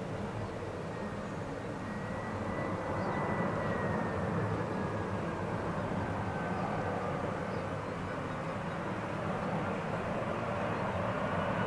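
Twin-engine jet airliner on final approach with gear down: a steady engine rumble topped by a thin whine that slides a little lower in pitch, growing slightly louder as it nears.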